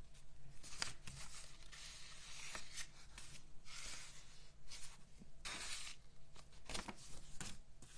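Paper and cardstock rustling and sliding on a tabletop as the sheets are handled and moved, in several separate swishes.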